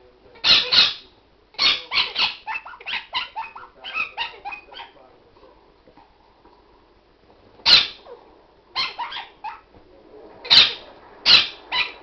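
A dog yapping in quick short bursts during play: a rapid run of yaps over the first few seconds, a pause, then more yaps from about eight seconds in.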